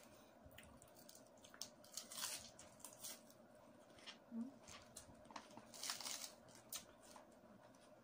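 Close-up eating: irregular crisp crunches and wet chewing smacks as lettuce and rice are eaten by hand, with soft rustles of the leaves. A faint steady hum runs underneath.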